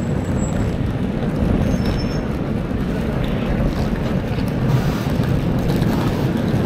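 Steady low rumble of bus engines and road traffic, with a faint steady hum coming in near the end.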